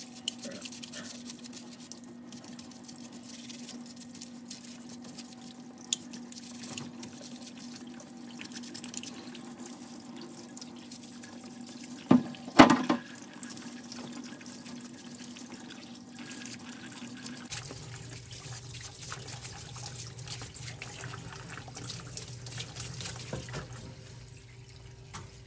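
Cleaning fluid running in a steady stream as the outside of a Kohler Command twin's carburetor is washed, over a low steady hum. Two sharp knocks come about twelve seconds in.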